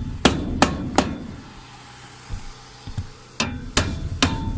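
Claw hammer pounding a metal T-profile wind brace down into a saw kerf in 2x4 wall studs for a tight fit: four sharp blows about three a second, a pause of about two seconds, then another run of blows near the end, one leaving a short metallic ring.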